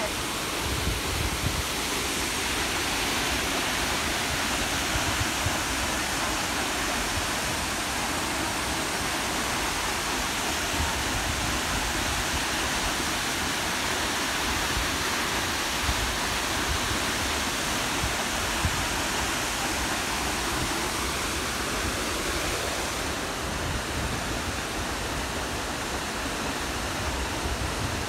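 Steady rushing noise of Tad Yuang waterfall, a tall cascade of falling water.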